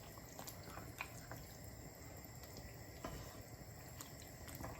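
Chicken cooking in onion paste and ghee in a pan on high heat: a faint, steady sizzle with a few light clicks of the stirring spoon against the pan.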